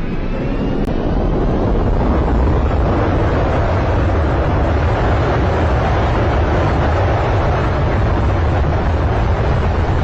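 Loud, steady roar with a heavy low rumble heard aboard a passenger airliner during its crash landing.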